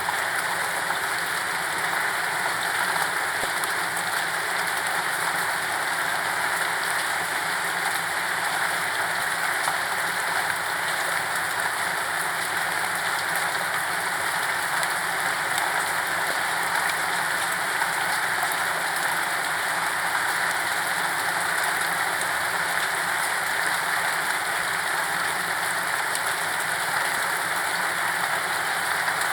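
Steady rain falling, a constant hiss of many drops with no thunder.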